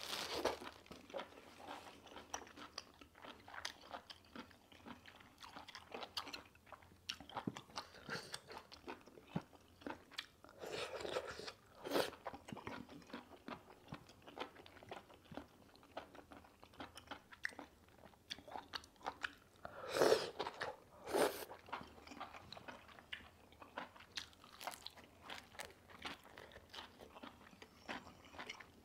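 Close-up chewing of octopus and noodles: many small wet crunches and mouth clicks, with a few louder mouth sounds about twelve and twenty seconds in.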